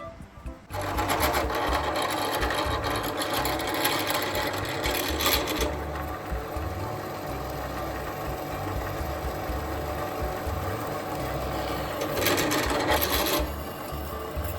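An electric power tool starts up abruptly under a second in and runs continuously, working small steel parts, and grows a little louder for a moment near the end.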